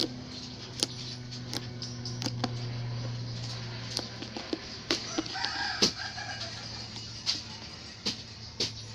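Hands squishing and stretching slime, making sharp sticky pops and clicks. A rooster crows in the background about halfway through, over a steady low hum that fades out around the middle.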